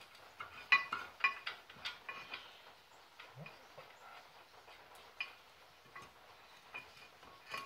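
Light metallic clinks and taps of brake caliper hardware and a bolt knocking against the steering knuckle and hub while the bolt hole is being lined up. A quick cluster of clinks comes in the first couple of seconds, then a few scattered ones.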